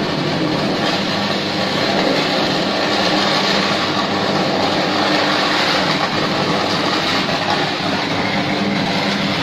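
Suburban electric train at the platform: a steady, loud rushing noise with a low hum underneath, unchanging throughout.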